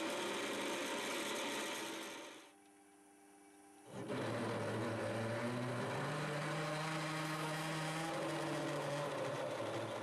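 Metal lathe running while a twist drill in the tailstock bores into hard steel stock: a steady hum of motor and spindle with the cutting noise. It dies away about two seconds in, is nearly silent for a moment, then starts again about four seconds in as a larger drill cuts.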